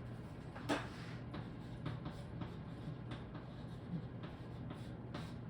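Hand-writing strokes: a run of short, light scratches of a pen as a formula is written out, one sharper stroke about a second in, over a steady low hum.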